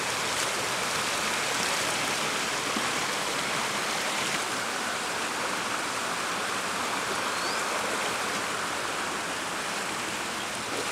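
Steady rush of flowing water, like a stream, with no change in strength.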